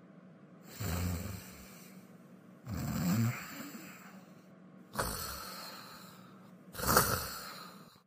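Snoring sound effect for a sleeping cartoon character: four snores about two seconds apart, the last one the loudest.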